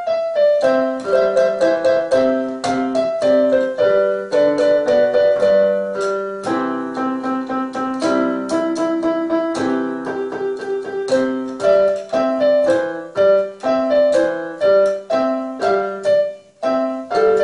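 Electronic keyboard playing a trumpet tune in a piano-like voice: a steady melody over a repeating bass-and-chord accompaniment, with a brief break near the end before the playing picks up again.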